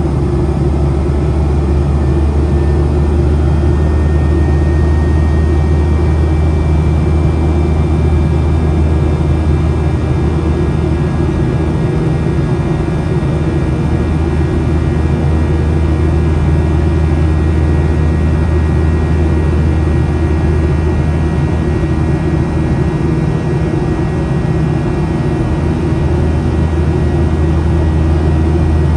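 Cabin noise inside a Boeing 737-700 in flight: a steady low drone from its CFM56 turbofan engines and the airflow, with faint steady whining tones above it.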